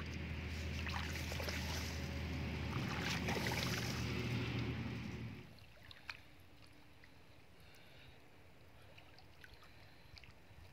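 Hands splashing and sloshing in shallow muddy water over a low steady rumble; about halfway it drops suddenly to a faint rustle with a few small clicks.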